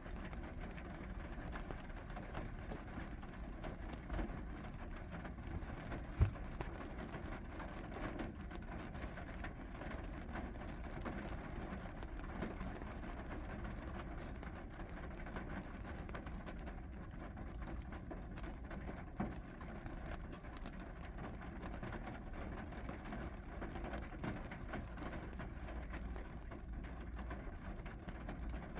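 Steady rain falling, an even noise with a low rumble beneath it, and a single short knock about six seconds in.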